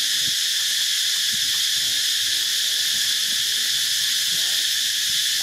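Steady, high-pitched drone of forest insects, unbroken and even throughout.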